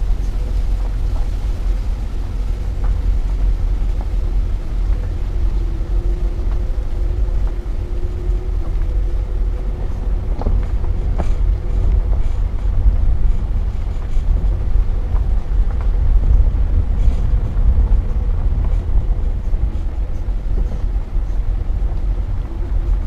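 2009 Nissan Altima Hybrid driving slowly over a dirt and gravel track, heard from outside on the hood: a steady deep rumble of tyres, road and wind, with a few sharp ticks about halfway through.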